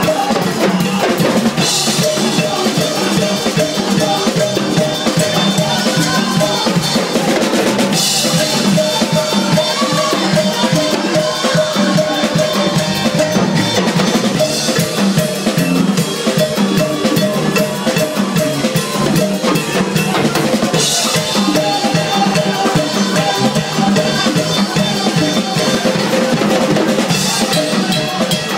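Live band playing upbeat worship music: drum kit driving a steady beat with congas and timbales, and cymbal crashes every several seconds.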